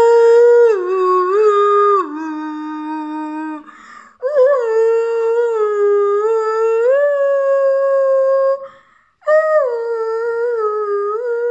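A boy humming a tune into his cupped hands: a pitched voice stepping between long held notes, in three long phrases broken briefly about four and nine seconds in.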